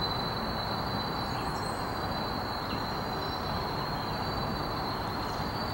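Diesel switcher locomotive running as it creeps slowly through the yard trackwork: a steady engine rumble with no sharp events.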